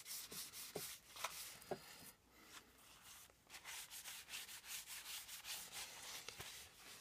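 Paper towel dampened with white spirit rubbed briskly back and forth over a small cast-iron apron plane, cleaning off its travel grease: faint, quick wiping strokes. A few light clicks come in the first two seconds, and there is a short pause in the middle.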